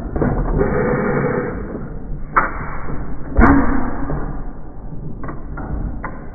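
1909 Domestic 1 hp hit-and-miss engine running: two sharp, loud bangs about a second apart near the middle, with lighter mechanical clicks of its valve gear and igniter in between and after.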